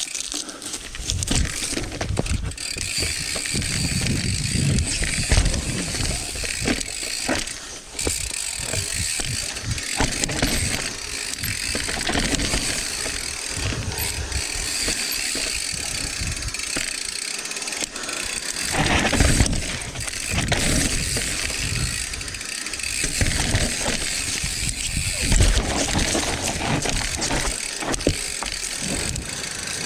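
Rocky Mountain Altitude full-suspension mountain bike descending a loose dirt trail: tyres running over dirt and roots, with the chain and frame rattling and knocking over bumps. Louder jolts come about two-thirds of the way in and again a few seconds later.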